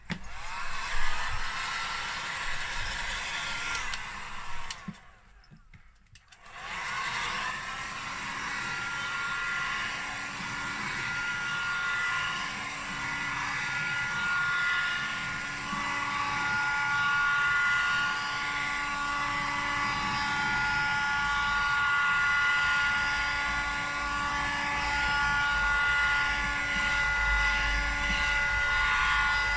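Hot-air tool blowing steadily, heating the laptop screen's adhesive to loosen it, with a high whine over the rush of air. It cuts out briefly about five seconds in and starts again.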